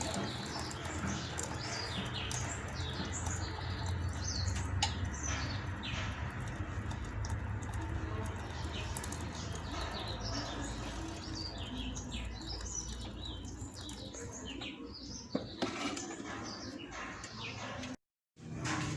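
Small birds chirping in many short, quick calls over a steady low background rumble.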